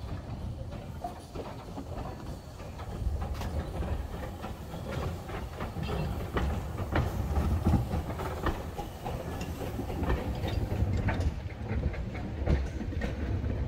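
Small saddle-tank steam locomotive (Agecroft No.3) running slowly past, hauling a brake van: a low rumble with many irregular clicks and knocks from the wheels on the track, getting louder about three seconds in.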